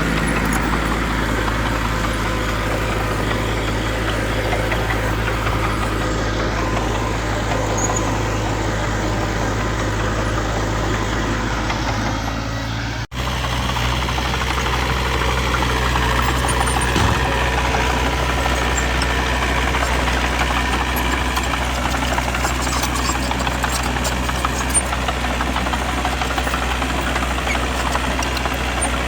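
Diesel engines of construction machinery running steadily at a low, even note, with a sharp break about thirteen seconds in where the sound cuts out and picks up again.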